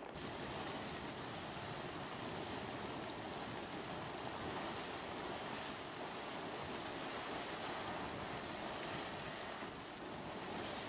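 Geyser erupting at close range: a steady rush of splashing water and venting steam.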